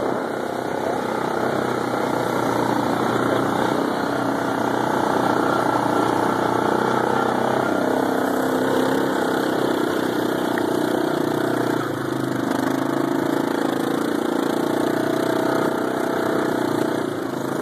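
Small ATV (quad bike) engine running while ridden, its pitch rising and falling a little with the throttle.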